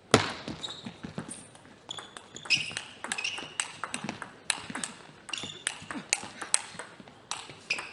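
Table tennis rally: the ball clicking sharply off the paddles and the table in quick, irregular succession, with players' shoes squeaking on the court floor.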